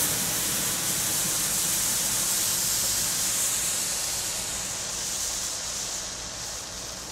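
Handheld red Bengal flare (Geisha 'Pyroflame', a Category 1 firework) burning with a steady hiss, fading as it burns down toward the end.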